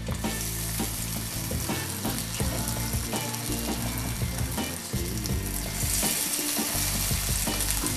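Tempura-battered vegetables deep-frying in hot oil in a wok: a dense, steady sizzle and crackle that grows brighter near the end as more battered pieces go into the oil.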